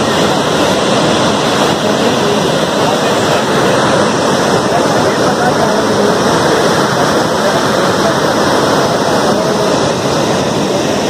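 Steady, loud rush of Athirappilly Falls, a large waterfall plunging down a rock cliff onto the river below, with faint voices mixed in.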